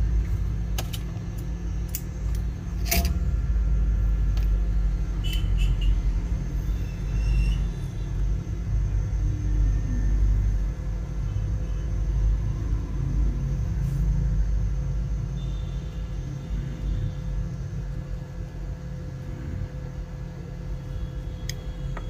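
A steady low machine rumble from the repair bench, with a few sharp tool clicks in the first three seconds, the loudest about three seconds in.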